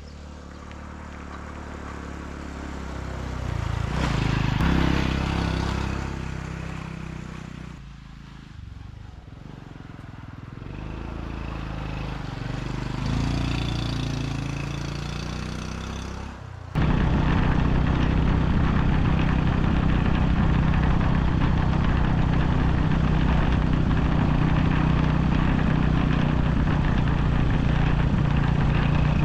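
Honda Super Cub 110's small single-cylinder engine under way, its pitch rising and falling as it accelerates and changes gear. About two-thirds in it switches suddenly to a louder, steady running drone with a rushing noise over it.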